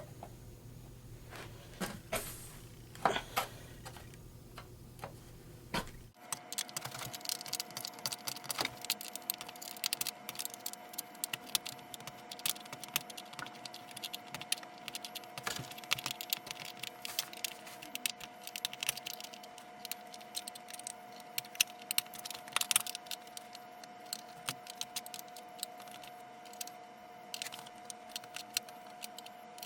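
A spam-can opening tool cutting the sheet-metal lid of a 7.62x54R ammo can. First come a few scattered metallic clicks, then about six seconds in a sudden switch to a fast, dense run of small clicks and crunches as the cutting goes on, time-lapsed.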